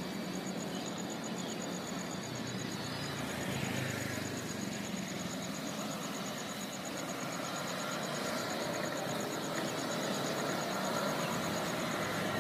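Motorcycle engines running and passing over a level crossing, a steady mix of traffic noise that swells a little in the second half. A thin, high pulsing tone runs underneath.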